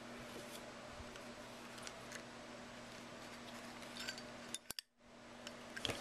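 Faint metallic clicks and ticks from a Zippo lighter's hinged lid and case as the lighter is swung and turned in the hand, over a steady faint hum.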